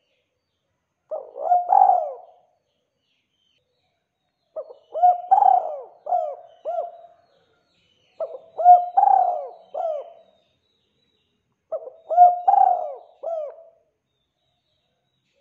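Spotted dove (tekukur) cooing: four repeated phrases about three and a half seconds apart, each a quick run of several arched coo notes.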